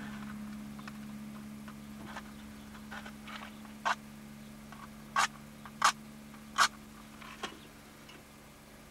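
Short sharp clicks and taps as small items are handled at a camp table, a scatter of light ones and three loud ones about two thirds of a second apart just after the middle, over a steady low hum.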